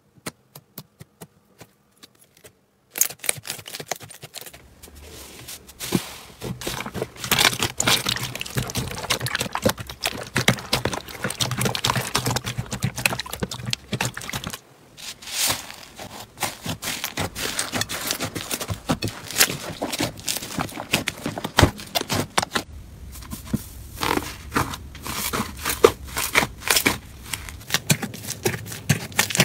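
Slime being handled: a few separate clicks and taps at first, then close, dense crackling, popping and squishing as it is pressed and stretched, with a brief break about fifteen seconds in.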